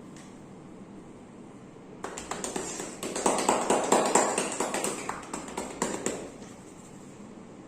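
Massage strokes: hands rapidly tapping and slapping on bare skin, a fast run of sharp taps that starts about two seconds in and lasts about four seconds, loudest in the middle.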